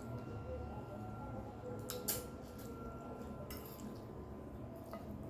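Quiet eating sounds at a meal: faint wet mouth noises of chewing, with a few light clicks of tableware, the sharpest about two seconds in.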